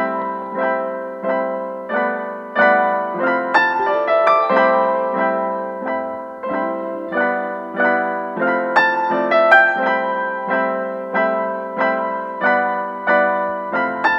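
Background piano music: a steady, gentle run of notes and chords, each struck and fading before the next, about one and a half a second.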